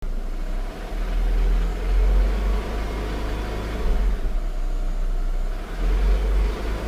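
Renault Laguna III 2.0 turbo engine running with a steady low rumble, carrying the strange noise that the owner cannot place between the engine and the transmission.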